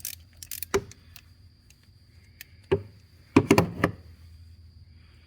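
Scattered sharp knocks and clinks of hand tools against metal while the spark plugs are worked out of the engine, with a quick cluster of several strikes about three and a half seconds in.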